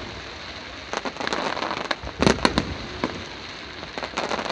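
Fireworks going off: a spell of crackling, then a quick run of sharp bangs a little over two seconds in, with crackling carrying on after.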